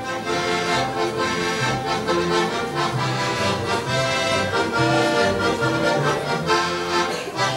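Accordion playing a lively folk dance tune, its melody carried over a steady, evenly pulsing bass-and-chord accompaniment.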